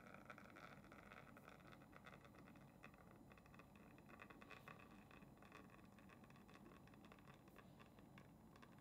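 Near silence: a faint trickle of espresso running from a Flair Signature manual lever espresso press into a glass during the shot, with tiny faint ticks.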